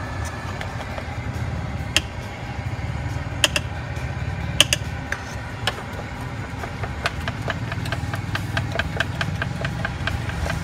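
Metal utensil clinking rapidly against a steel mug, beating eggs for martabak telor: regular strikes about four a second from about seven seconds in, after a few sharper single clinks earlier. A steady low rumble runs underneath.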